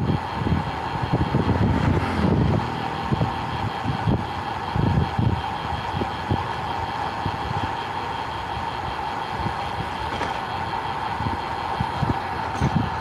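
Wind buffeting the small action camera's microphone on a road bike riding at speed: irregular low gusts over a steady hum.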